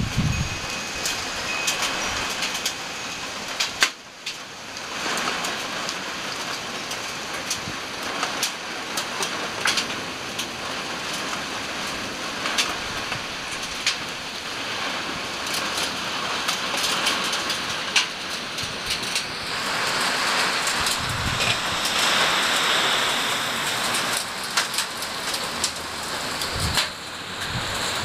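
Heavy rain pouring down in gusty wind: a steady hiss with frequent sharp taps of drops striking nearby surfaces. The rain grows louder from about twenty seconds in, with a brief low rumble.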